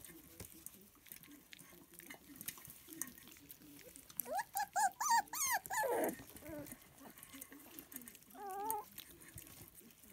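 Lancashire Heeler puppies yelping in a quick run of high squeals about four seconds in, then one short wavering whine near the end. Under it is the faint smacking and clicking of puppies eating from a steel bowl.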